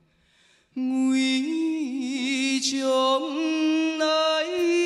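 A male vocalist singing unaccompanied, a cappella, after a brief hush of under a second. He holds long notes with vibrato, the pitch stepping upward toward the end.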